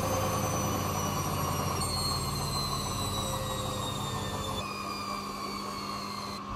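Hoover Wizard washer dryer spinning down after a 1400 rpm spin with wet bedding: the motor's whine falls in pitch in a few steps over a steady drum hum, and the whole sound gradually fades. The high whine cuts off near the end.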